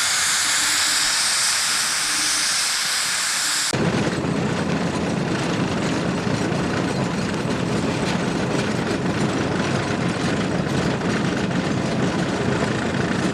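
Fowler steam ploughing engine hissing steam, then, after an abrupt change about four seconds in, the engine working under load with a dense, rapid clatter.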